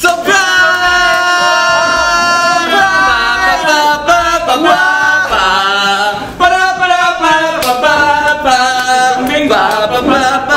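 A group of young men singing together without instruments, opening with a long held group shout.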